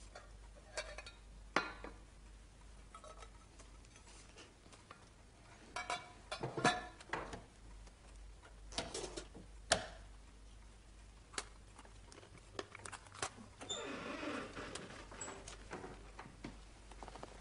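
Glassware and a wooden glass-fronted cabinet being handled: scattered soft clinks and knocks, a quick cluster of them about six seconds in, with a longer soft rustle near the end.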